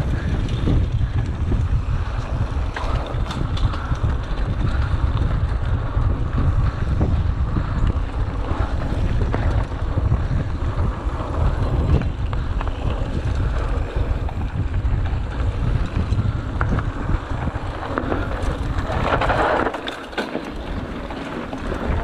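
Wind buffeting the microphone of a camera riding on a mountain bike, with the tyres rolling over a dirt trail and the bike clattering over bumps.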